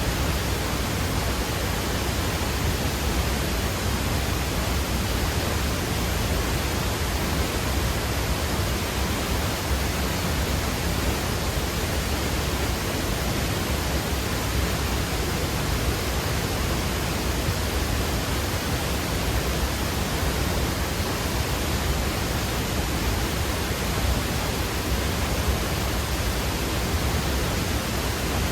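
Waterfall making a steady, dense rush of falling water, even throughout with a heavy low rumble.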